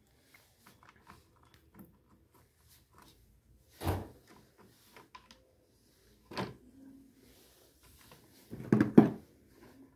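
Handling noise from an opened induction cooktop being closed back up: scattered light clicks and rustles, with louder knocks about four seconds in and about six and a half seconds in, and the loudest clatter near the end as the parts are pressed back into place.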